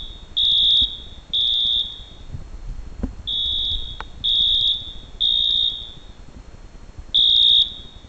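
Fire alarm horn sounding in the code-3 temporal pattern: half-second beeps of one high pitch, three in a row, then a pause, then three more. A new group begins near the end.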